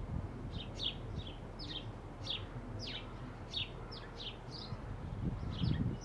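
House sparrows chirping: a steady run of short, repeated cheeps, about three a second, some sliding down in pitch.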